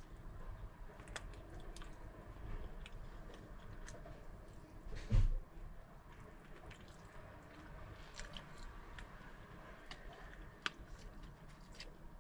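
Close-up chewing and biting of finger food, with many small wet mouth clicks and smacks. About five seconds in there is one loud low thump.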